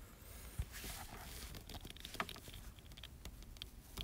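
Faint rustling and small clicks of a wire being pulled down through a cable's plastic outer sheathing, tearing it open, with fingers handling the cable.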